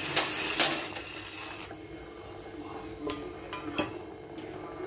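Dry fusilli pasta tipped into a steel pot of boiling water: a dense rattling clatter for about the first second and a half, then a few light clinks.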